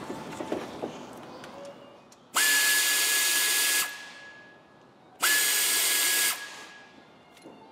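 Pneumatic ratchet run twice, for about a second and a half and then about a second. Each time it spins up at once to a steady high whine over a rush of exhaust air, undoing bolts in the engine bay. A few light knocks of tool handling come before it.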